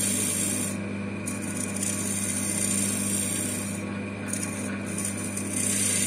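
Wood lathe motor running with a steady hum while a hand-held turning tool cuts a spinning plywood disc, the hiss of the cut easing off briefly twice as the tool pressure changes.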